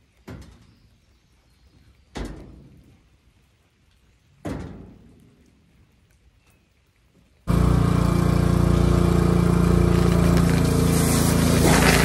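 Three separate knocks about two seconds apart, each ringing out for about a second. About seven and a half seconds in, a pressure washer cuts in loud and steady: its small engine running with the hiss of the spray jet.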